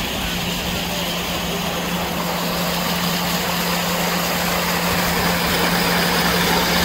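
Ground-level fountain jets gushing up through a grate and splashing: a steady, loud rushing of water, growing slightly louder, with a steady low hum underneath.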